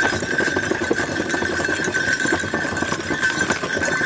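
Horse-drawn tanga rolling along a dirt track: a steady rattle and knocking from the wooden cart and harness, with the horse's hooves clip-clopping. A thin, steady high-pitched whine runs underneath.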